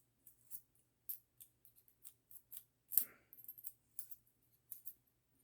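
Light clicks and ticks of small parts of an airgun revolver being handled during reassembly, with one louder click about three seconds in.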